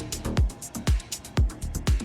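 Background electronic dance music with a steady kick drum, about two beats a second, and hi-hats ticking between the beats.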